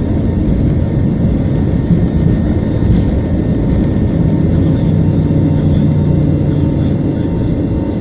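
Airbus A320neo's CFM LEAP-1A turbofan engines at take-off thrust, heard from inside the cabin: a loud, steady rumble and roar of the take-off run. A low drone joins about halfway through.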